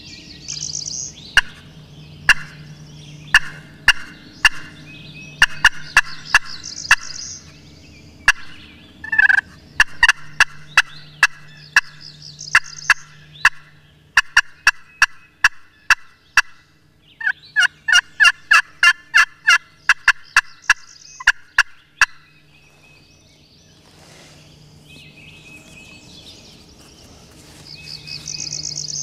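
Series of sharp turkey yelps from a hand-held friction (pot) call and striker, in runs of two to four notes a second with a faster run past the middle, with a wild turkey tom gobbling in reply.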